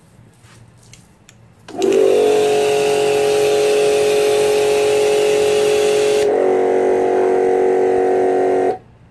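Imperial high-pressure washer's electric motor and pump start up and run with a steady hum while the water jet hisses from the spray gun. About two-thirds of the way through, the spray hiss stops as the trigger is let go, but the motor keeps running at a slightly lower pitch instead of cutting out, until it stops abruptly near the end. This failure to shut off when the trigger is released is the machine's fault.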